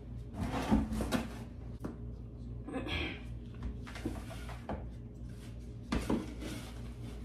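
Chunky potting mix of perlite, orchid bark and leca balls being scooped from a container and tipped into a plant pot, in four rustling, scraping bursts.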